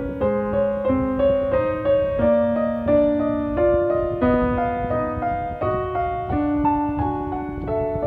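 Background piano music: a slow melody of held notes, changing about every half second to second, over a lower moving line.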